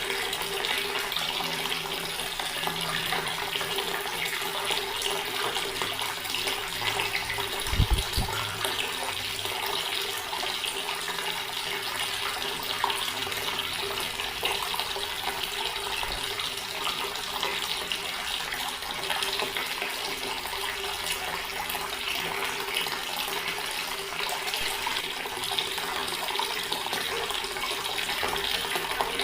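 Water from a tap running steadily into a stone basin, a continuous splashing flow. A brief low thump about eight seconds in.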